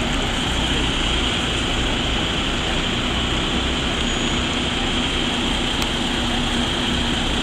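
Heavy truck tractor unit's diesel engine running steadily at low speed as it pulls a long multi-axle heavy-haul trailer with a 140-tonne load, with a continuous drone and no sudden changes.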